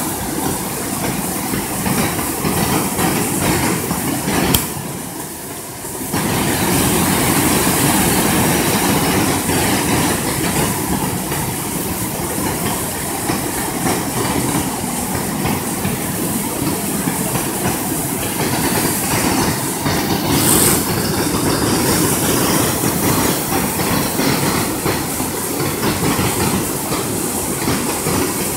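Fast-flowing river water rushing steadily over rocks, a loud continuous noise. A click about four and a half seconds in is followed by a brief drop in level.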